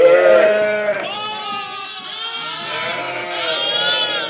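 Several sheep bleating, overlapping calls at different pitches, the loudest one right at the start.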